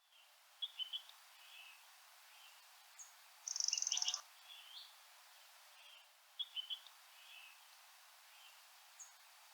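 Faint birdsong: short phrases of high chirps, one phrase coming twice about six seconds apart, with a rapid high trill lasting about half a second near the middle as the loudest sound.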